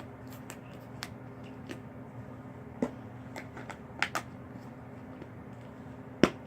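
Slime being handled: scattered small clicks and pops, with a sharper click near the end, over a steady low hum.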